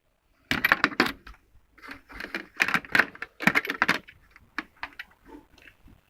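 Metal hand tools clinking and clattering against each other in a metal cantilever toolbox, a quick run of sharp rattles that thins out to a few single clinks.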